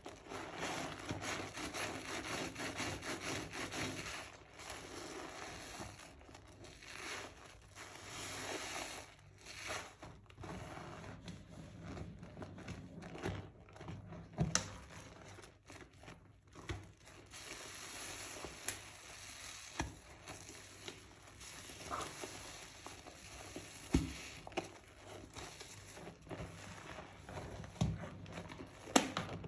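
Hands squeezing and kneading soaked, mushy Palmolive bar soap in a tub of lather: wet squishing and crackling foam, loudest in the first few seconds, then in patches with a few sharp pops.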